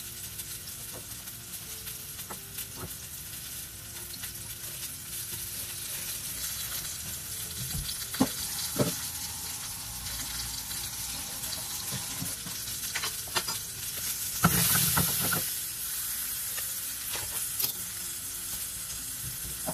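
Baby potatoes frying in a nonstick pan, a steady sizzle. A few knocks come about eight seconds in, and a louder stretch of noise about fifteen seconds in as the potatoes are turned in the pan.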